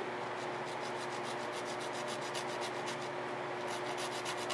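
A blade sawing back and forth through the excess end of a sticky rubber tire-plug strip, trimming it near the tread. It is a rapid, even scraping, several strokes a second.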